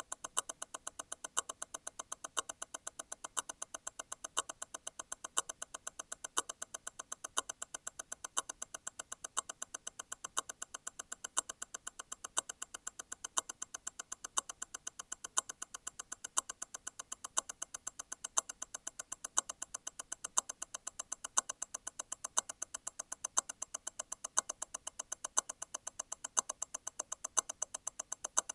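Grand Seiko T0 Constant-force Tourbillon movement ticking at 28,800 vibrations an hour, a fast, even run of ticks. About once a second a stronger click stands out: the constant-force stop wheel coming out of mesh and striking again once every eight vibrations.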